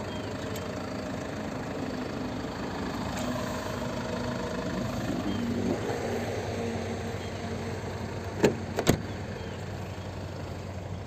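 Jaguar saloon's engine idling steadily, with two sharp knocks close together about eight and a half seconds in.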